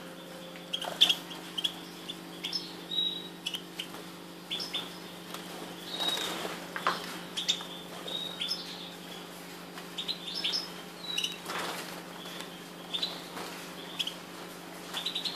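Young European goldfinches and goldfinch hybrids in an aviary giving short, high chirps and call notes, scattered irregularly, with a few sharp clicks. A steady low hum runs underneath.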